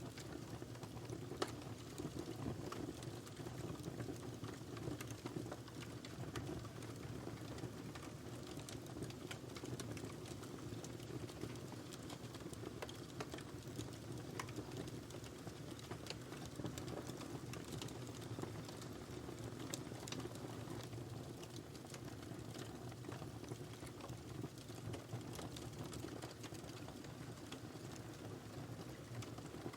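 Wood fire burning in a fireplace: a steady low rush of flames with many small, sharp crackles and pops.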